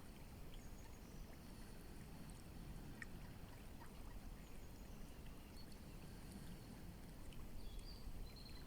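Faint steady rush of a flowing river, with a few faint, short, high bird chirps, mostly near the end.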